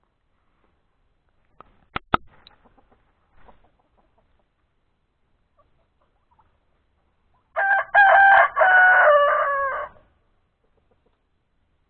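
A rooster crowing once, a cock-a-doodle-doo of about two and a half seconds in three parts, the last part long and falling. A couple of sharp clicks come about two seconds in.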